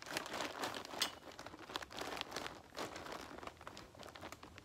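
Crinkly rustling with many light clicks as a rifle is shifted and settled onto a camo shooting-rest bag on a UTV's hood, dying down near the end as the shooter goes still to aim.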